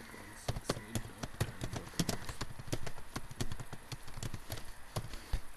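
Typing on a computer keyboard: quick, irregular keystroke clicks, several a second.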